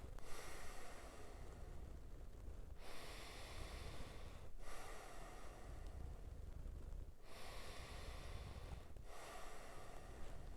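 A person breathing deeply in and out through the nose in a guided breathwork round. The breaths follow one another in long strokes of about two seconds each, with only short pauses between them.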